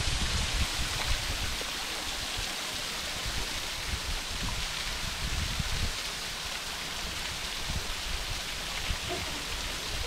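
A waterfall's water rushing steadily, an even wash of noise, with uneven low rumbling underneath.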